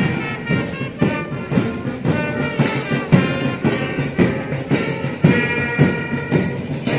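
Brass band music with a steady drum beat, about two beats a second, with sustained horn tones.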